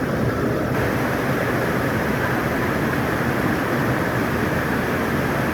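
Steady rushing water of a rocky mountain stream, turning brighter and hissier less than a second in.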